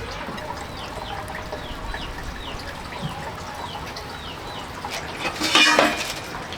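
Chickens calling: a steady run of short, high, falling peeps, about three a second, then a louder, harsher outburst about five seconds in.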